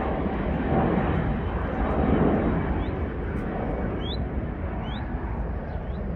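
Rolls-Royce Trent XWB engines of an Airbus A350-900 airliner, a broad jet rumble fading slowly as it climbs away after takeoff. A few short rising chirps sound over it in the second half, about one a second.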